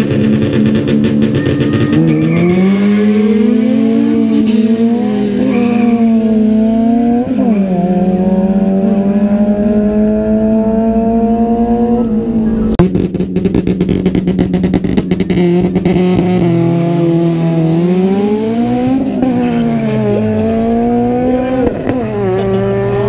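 Honda Civic drag car's engine revving hard and pulling away from the start line, its pitch climbing steadily and dropping suddenly at each upshift. A loud rough burst comes about halfway through.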